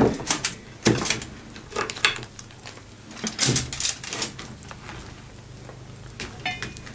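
Hard snow crab leg shells clicking and knocking against each other and the plate as clusters are lifted and set down by hand: a scattered series of sharp clicks, thinning out in the second half.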